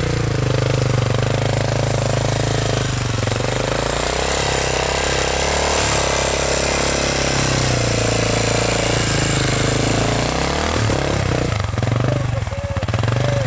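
Motorcycle engine running under way, its pitch rising and falling with the throttle, with dips about three seconds in and around ten seconds in, and a steady hiss of wind and tyres from about four seconds in.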